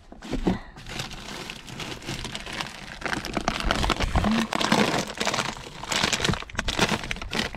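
Plastic zip-top bags and a snack wrapper rustling and crinkling in irregular bursts as a hand rummages through a portable car fridge and pulls out a bag of cookies.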